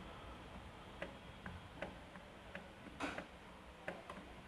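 Motorcycle engine running on its stand in fifth gear, a steady low rumble with sharp irregular ticks and clicks, the loudest about three seconds in; the mechanic is checking it for a knocking noise that the owner hears from the engine.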